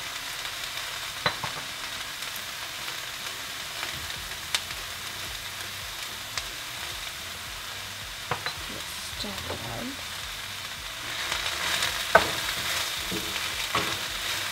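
Chopped mushrooms, leeks and garlic sizzling steadily in olive oil in a frying pan, with a few light clicks. From about eleven seconds in the sound grows louder and busier as a wooden spoon stirs the vegetables around the pan.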